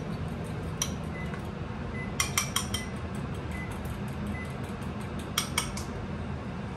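Metal fork clinking against a ceramic bowl while eggs are beaten: a single sharp clink about a second in, a quick run of four or five a little after two seconds, and two more near the end, each with a short ring. A steady low hum runs underneath.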